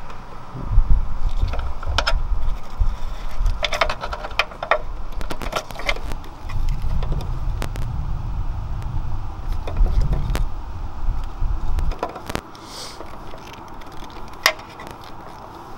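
Hands working deep in an engine bay at a compression tester hose glued to an adapter stuck in a spark plug hole. Scattered clicks and light rattles of parts being handled sound over a low rumble, which stops about twelve seconds in.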